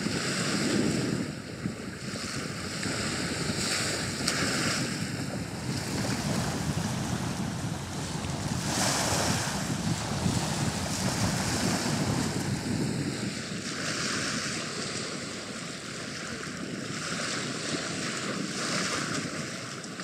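Small sea waves washing up on a sandy beach, the surf swelling and easing, with wind buffeting the microphone.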